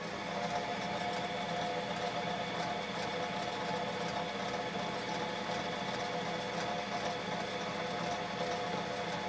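Glen metal lathe starting and running, coming up to speed right at the start and then holding a steady motor-and-gear hum with a bar in the chuck.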